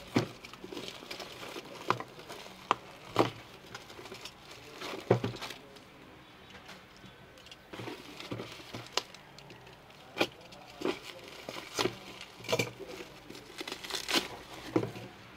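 Plastic packaging crinkling and rustling as hands unwrap a parcel, with irregular sharp crackles.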